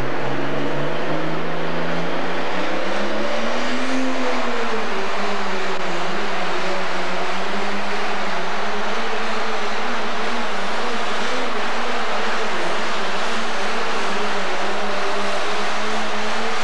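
Pro Stock pulling tractor's diesel engine at full throttle, pulling a weight-transfer sled under heavy load. Its pitch climbs, sags about four seconds in, then holds steady.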